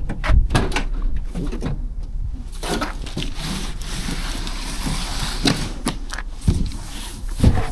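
A cardboard-boxed toilet being dragged across the ribbed floor of a cargo van's load bay: a scraping hiss lasting a few seconds, with knocks and thumps before and after it.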